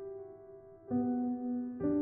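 Soft piano background music: sustained chords, with a new chord struck about a second in and another near the end.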